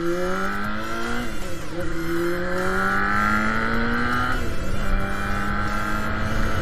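Monkey 250 motorcycle with a newly fitted aftermarket silencer accelerating through the gears. The exhaust note rises, drops at an upshift just over a second in, climbs again for about three seconds, drops at a second upshift about two-thirds through, then holds steady.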